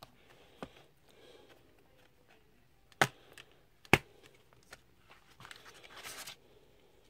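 Plastic Blu-ray case being handled and opened: two sharp plastic clicks about a second apart as the case snaps open, the second the louder, then a brief rustle as the hinged inner disc tray is turned.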